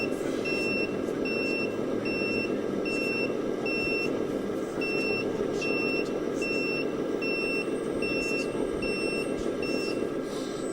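Reversing beeper of a radio-controlled model truck's sound module, sounding short, even, high beeps a bit under one and a half times a second while the model backs up, with a steady background noise beneath. The beeps stop near the end.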